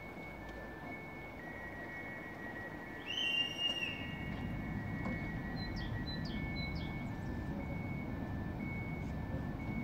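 Repeated electronic beeping in two pitches, like a level crossing warning signal, with birds chirping. A low rumble builds from about three and a half seconds in.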